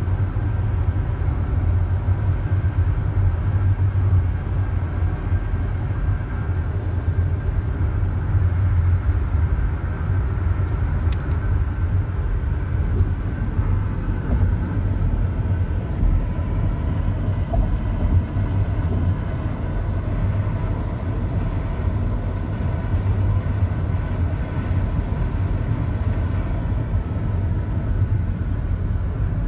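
Steady low rumble of car engine and road noise heard from inside the cabin of a car cruising at highway speed.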